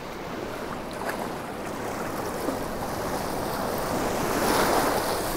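Small surf waves breaking and washing up the sand at the water's edge, the wash swelling louder about four to five seconds in.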